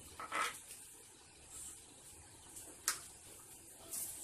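Faint handling noises from the cooking pots and batter bucket: a short scrape about half a second in and one sharp click just before three seconds.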